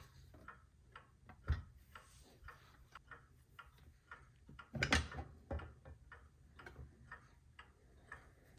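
The brass top plate of an antique astronomical regulator movement being lifted off its pillars, with a knock about one and a half seconds in and a louder clatter of brass about five seconds in. A clock ticks faintly in the background.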